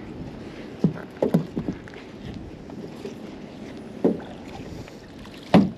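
Hard knocks and clunks on a boat as magnet-fishing gear and finds are handled: a quick run of four or five knocks about a second in, another at about four seconds, and the loudest just before the end, over a steady low background rumble.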